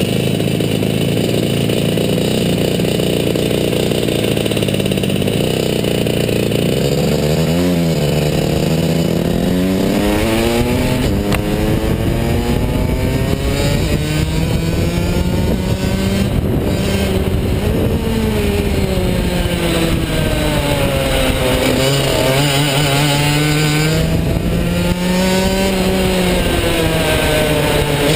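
Rotax DD2 shifter kart's 125cc two-stroke engine idling steadily, then revving up about seven seconds in as the kart pulls away. From there the revs climb and fall again and again as the kart accelerates and slows around the track.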